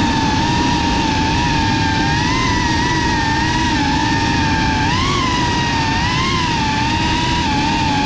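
FPV quadcopter's motors and propellers whining, the pitch wavering up and down with the throttle and swooping upward briefly about five seconds in and again a second later, over a steady rush of air noise.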